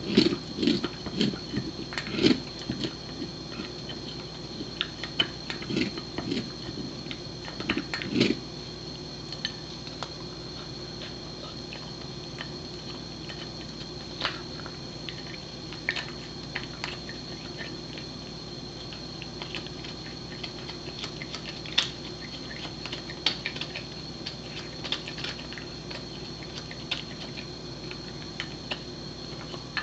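Pembroke Welsh Corgi gnawing a caribou antler: irregular clicks and scrapes of teeth on hard antler, thickest in the first eight seconds and sparser after that.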